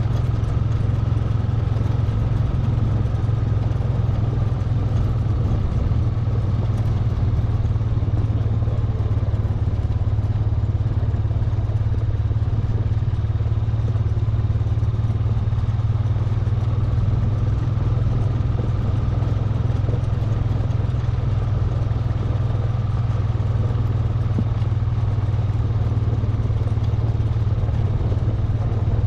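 An ATV's engine running steadily as the quad rides along a dirt track, a constant low hum with no revving.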